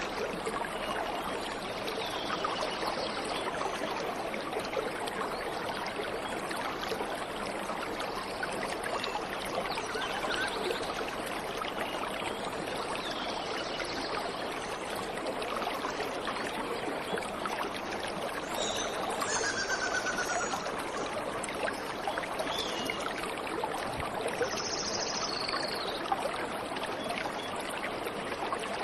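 Water falling and rushing steadily, as from a waterfall or fast stream, with a few birds calling briefly now and then over it.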